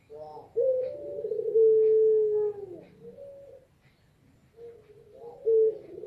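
Female puter pelung dove, a domestic ringneck dove, cooing in her call to a male. A short opening note leads into a long, drawn-out low coo held steady that slides down at its end. A short closing note follows, and after a brief pause the next coo begins near the end.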